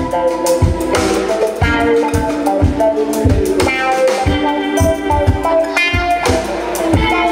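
Live band playing: electric guitar over a steady drum beat.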